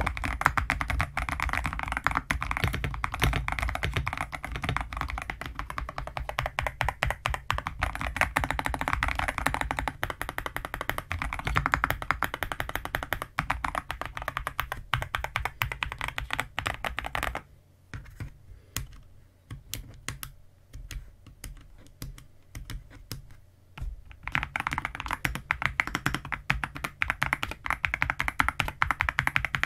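Epomaker RT100 mechanical keyboard being typed on: a fast, dense run of key clacks, thinning to scattered single keystrokes for several seconds past the middle, then fast typing again near the end.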